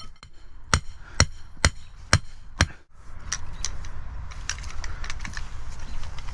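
Hammer driving a layout pin into the ground: five sharp, evenly spaced blows about half a second apart, each with a short metallic ring. After them come a few lighter knocks and taps.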